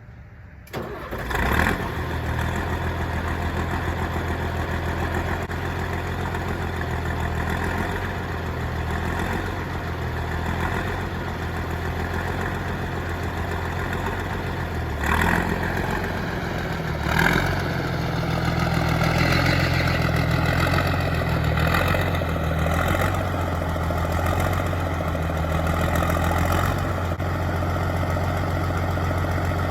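Deuce-and-a-half military truck engine catching about a second in, then running at a steady idle, with two brief revs about halfway.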